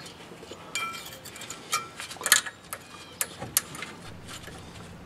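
New thin steel brake-pad abutment clip being pushed and snapped into a rear disc-brake caliper bracket by hand: a string of small metallic clicks and light ringing taps, most between about one and three and a half seconds in.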